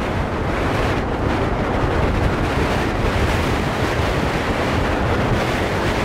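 Strong hilltop wind buffeting the microphone: a loud, steady rush of wind noise.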